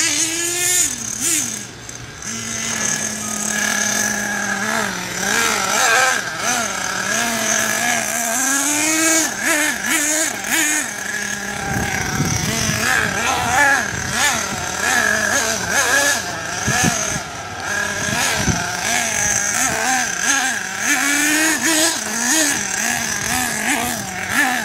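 Radio-controlled car's motor revving up and down again and again as it is driven, its pitch rising and falling in repeated glides.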